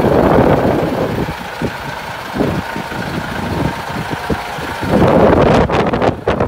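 Hino Profia truck's diesel engine idling steadily, with wind buffeting the microphone, louder in the last second or so.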